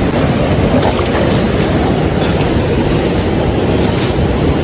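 Loud, steady rush of a fast-flowing Himalayan mountain river.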